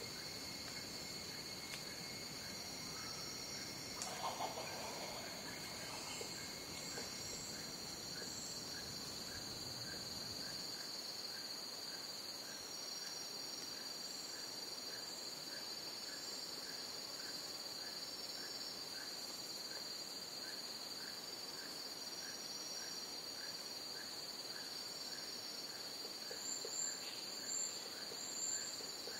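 Jungle crickets and other insects calling together: a steady high trill, pulsing higher calls that swell near the end, and a lower chirp repeating a bit more than once a second. A brief lower call stands out about four seconds in.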